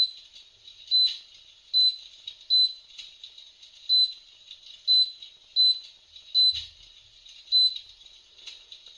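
Electric fireplace touch control panel beeping as its buttons are pressed to cycle the hearth backlight colours: about ten short, high-pitched beeps, irregularly spaced about a second apart.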